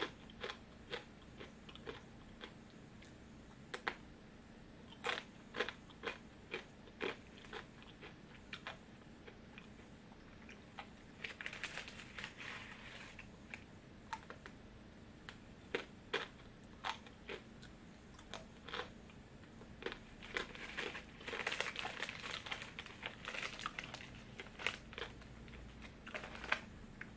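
Crunching and chewing of thin, crisp snack sticks, each bite a sharp crack, with a foil snack packet rustling in stretches about halfway through and again in the later part.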